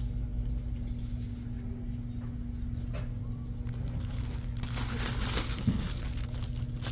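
Steady low electrical hum over a rumble; about two-thirds of the way in, a rustling noise joins it, with a single short click.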